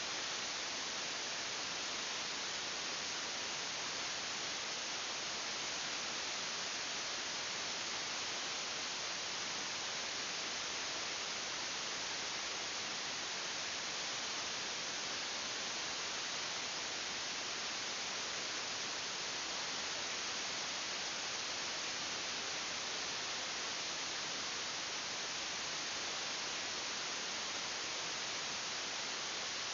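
Steady, even hiss, strongest in the upper range, with no change in level or character.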